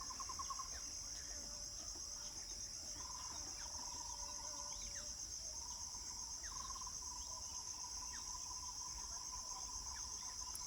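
Steady, high-pitched insect chorus trilling without a break, with a fainter, lower pulsing trill that comes and goes and a few faint short chirps.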